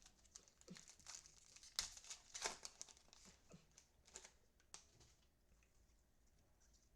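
Trading cards being handled and flipped through: faint, scattered rustles and slides, most of them in the first five seconds.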